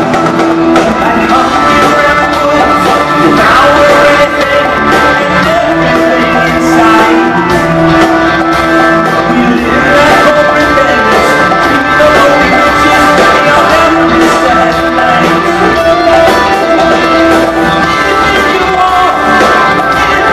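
Live rock band playing loudly, with electric guitar, drums and a male lead singer, heard from the audience.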